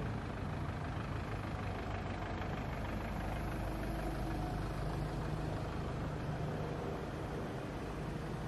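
Steady street traffic noise with a vehicle engine running, a low hum under the road noise.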